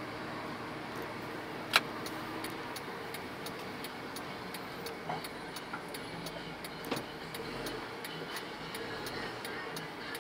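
Busy city street ambience: a steady hum of traffic and passers-by, with quick, regular light ticking at about three a second and one sharp click about two seconds in.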